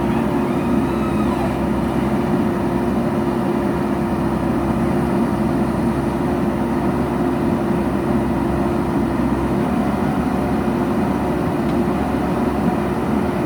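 JCB backhoe loader's diesel engine running steadily at constant revs, holding one even pitch.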